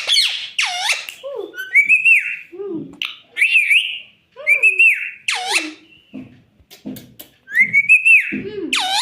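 Pet parrot whistling: a series of separate whistles, each rising then falling in pitch, about one every one to two seconds, with a few lower squawky chirps between them.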